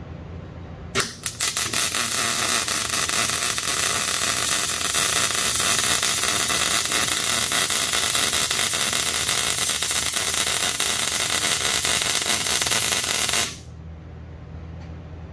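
Wire-feed welder arc on steel. It strikes about a second in with a couple of stutters, then crackles steadily for about twelve seconds and cuts off suddenly near the end.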